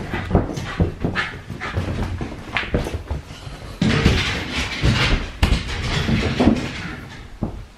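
A Shiba Inu moving about excitedly, with irregular footsteps and knocks on the floor and short dog vocal sounds among them.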